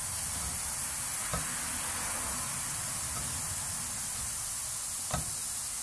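Steady hiss, with two faint knocks, one about a second and a half in and one near the end.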